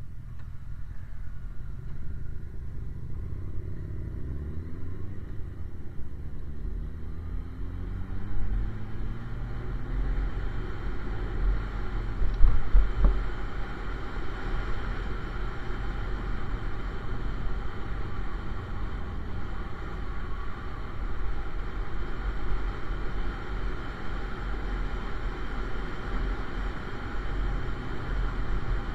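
Motorcycle engine pulling away, its pitch rising in several sweeps through the gears over the first ten seconds or so, then settling into steady riding with low wind rumble on the microphone. About twelve seconds in there is a brief louder rumble.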